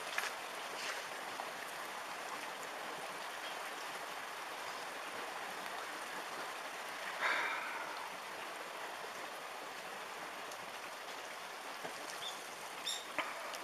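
Steady rushing noise of tsunami floodwater flowing, with a brief louder burst about seven seconds in.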